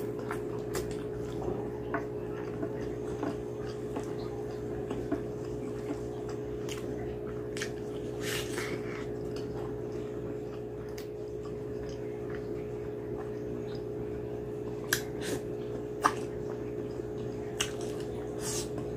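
Close-up eating sounds of mutton curry and rice eaten by hand: scattered wet lip smacks and chewing clicks, a few sharper ones near the end, over a steady low hum.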